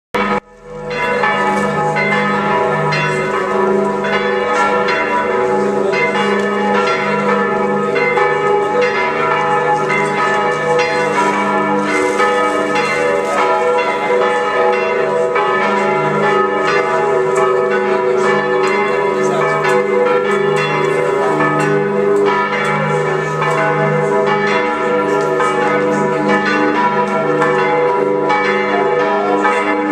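Church bells of Sant'Eustachio pealing from its bell tower: several bells struck over and over, their tones overlapping in a continuous loud peal.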